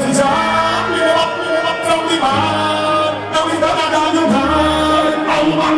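Loud music with a singing voice over long held bass notes, played through a sound system at a dance.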